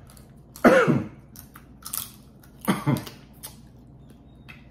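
A person coughing twice, about two seconds apart, with soft chewing and mouth clicks from eating seafood between the coughs.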